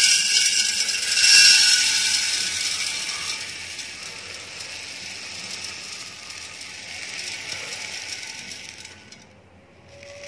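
Granulated sugar being poured into a glass jar, a steady rattling hiss of grains falling on glass. It is loudest in the first couple of seconds, then thins out and stops near the end.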